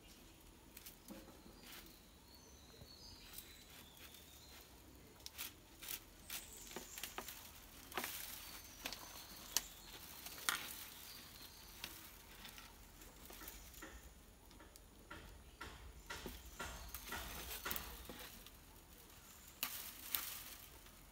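Faint rustling and clicking of a bundle of coconut-leaf midribs (ekel) as twine is pulled and wound tight around them to bind a broom head. It comes in irregular bursts, with a few sharper ticks near the middle and again near the end.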